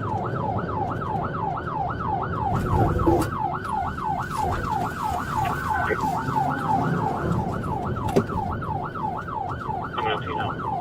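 Police car siren in fast yelp mode, wailing up and down about three times a second, over the road noise of a vehicle in pursuit.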